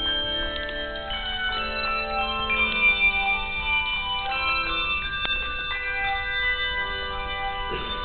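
Handbell choir playing: several bells struck together in chords, a new chord about every second, each note ringing on and overlapping the next.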